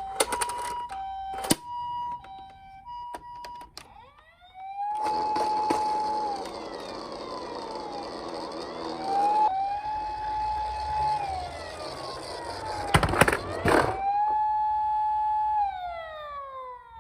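Electronic sound-chip sirens of toy emergency-vehicle minicars. For the first few seconds a two-tone hi-lo ambulance siren alternates, broken by sharp clicks. Then wailing sirens rise, hold and fall, several overlapping, with a rushing noise in the middle and a burst of clicks and knocks near the end.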